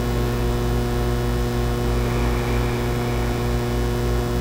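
Steady electrical mains hum with a stack of even overtones, unchanging throughout.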